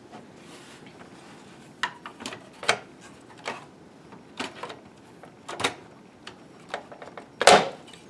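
Clicks and knocks of a third Nvidia GTX 980 graphics card being handled and pushed into a motherboard PCIe slot, about ten separate sharp sounds, with the loudest clack near the end as the card seats.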